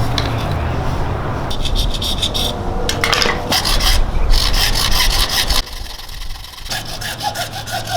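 Repeated rasping, rubbing strokes of hand-tool work on the build piece, like sawing or filing, that stop about two-thirds of the way through.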